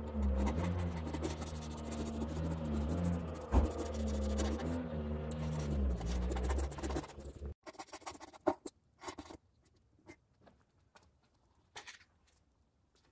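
Utility knife scraping and cutting through carpet lining on a wooden subwoofer box, over a low droning tone that shifts pitch now and then. Both stop abruptly about seven and a half seconds in, leaving only faint scattered scratches and clicks.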